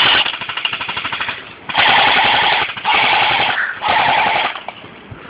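Airsoft electric gun firing about four short full-auto bursts, each under a second long, its gearbox cycling in a fast mechanical buzz of rapid shots.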